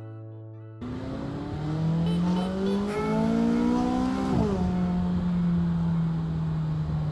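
McLaren twin-turbo V8 accelerating, its engine note rising for about three seconds, then dropping at a gear change about four and a half seconds in and holding steady.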